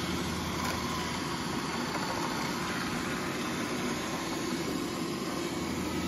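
Roborock robot vacuum running with a steady whir as it cleans a hard laminate floor.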